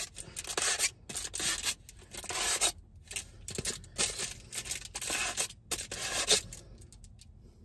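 Aluminium foil crinkling and tearing in irregular bursts as a knife tip pokes holes through it. It goes much quieter in the last second.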